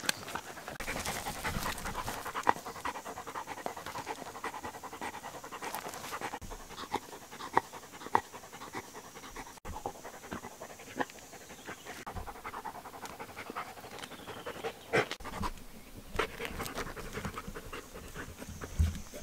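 A Belgian Malinois panting hard, with scattered sharp clicks and scrapes of its teeth gnawing a rock.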